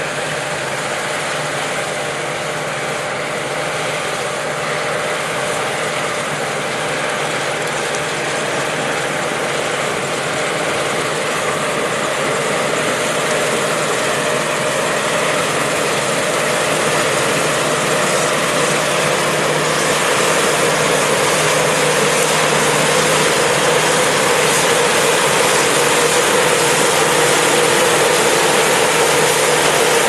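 Claas combine harvester running while cutting a standing cereal crop: its engine and the rattling header and threshing machinery make a steady mechanical din that grows gradually louder as the machine comes closer.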